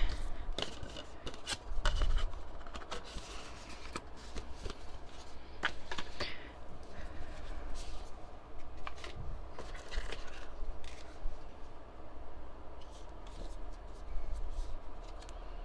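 Album packaging and its paper and plastic contents being handled by hand: scattered light clicks and taps with short rustles.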